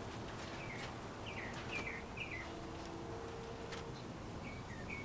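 Birds chirping, a series of short downward-sliding calls repeated every half second or so, over faint outdoor background noise.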